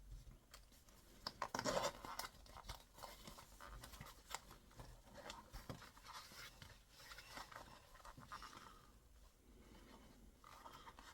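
Faint scratching, rustling and light ticks of packaging being handled as a box is opened and its contents lifted out, busiest about a second or two in.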